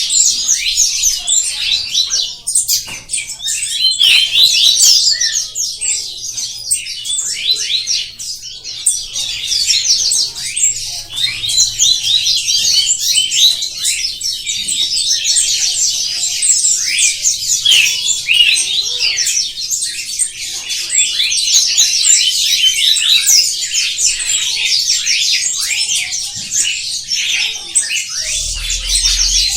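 Many small birds chirping at once, a dense, continuous chatter of short high chirps overlapping without pause.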